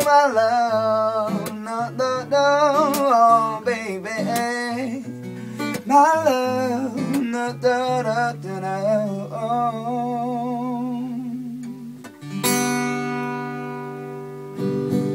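Acoustic guitar and a man's wordless vocal closing a song: the vocal runs over the guitar for the first several seconds, then the guitar carries on alone, with a strummed chord about twelve seconds in that rings out and a last chord near the end.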